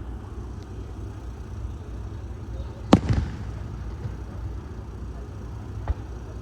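Fireworks display: one loud firework bang about three seconds in, with a short echoing tail, and a fainter bang near the end, over a steady low background noise.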